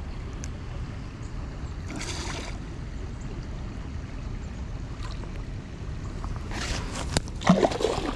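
Steady rush of creek water, with two short splashes as a hooked bass fights at the surface, and a few sharp clicks near the end.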